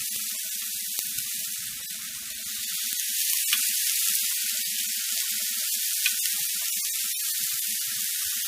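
Cod loins sizzling on the hot plates of a preheated T-Fal OptiGrill: a steady hiss with scattered crackles.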